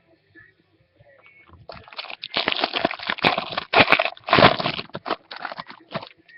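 Crinkling and crackling of a foil trading-card pack wrapper being torn open and handled, a dense run of crackles that starts about a quarter of the way in and stops just before the end.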